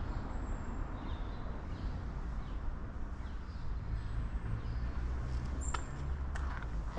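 Audi SQ8's 4.0-litre V8 idling, a steady low rumble from the quad exhaust tips.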